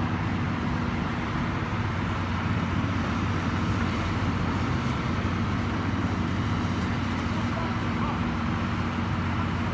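Heavy machinery's diesel engine running steadily at a constant speed, with no sudden crashes or impacts.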